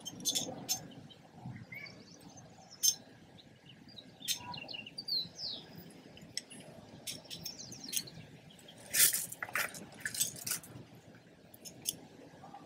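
Irregular metal clicks and clinks of roof-rack latch bolts and lock nuts being handled and fitted into the rack's metal side panel, the loudest cluster a little past halfway. Birds chirp briefly in the background.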